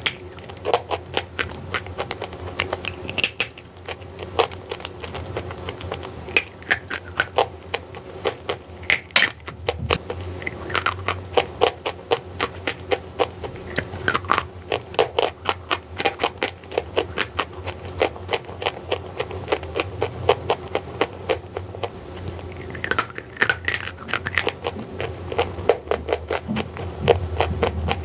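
Chalk and clay being crunched, a dense, irregular run of sharp crackles and snaps, several a second.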